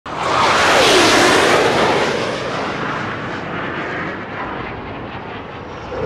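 A loud rushing noise like a jet aircraft passing, swelling within the first second, with a falling tone about a second in, then slowly fading away.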